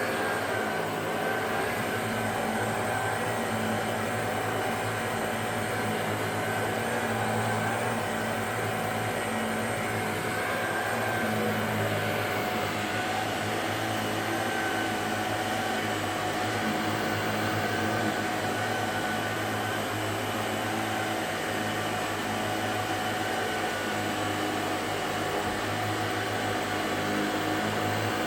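Shark DuoClean NV801UK upright vacuum cleaner running steadily, a motor hum with a constant whine.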